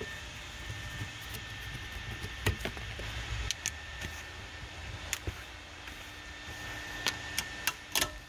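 Scattered sharp plastic clicks and knocks of seat wiring-harness connectors being handled and unplugged under the seat, several in quick succession near the end, over a steady low hum.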